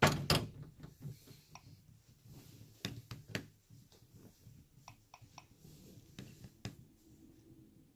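Hatchimals Hatchibabies toy egg hatching: scattered knocks and clicks against its plastic shell, with a few short electronic beeps.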